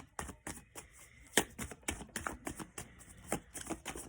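Tarot deck being shuffled and handled: a run of quick, irregular card flicks and taps, the sharpest about a second and a half in.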